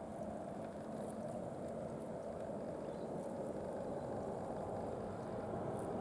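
Steady low rumble of background noise, with a few faint, brief high-pitched ticks.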